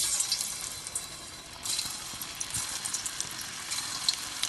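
Batter-coated banana stem pieces deep-frying in hot oil: a steady sizzle full of small crackles, growing louder about one and a half seconds in.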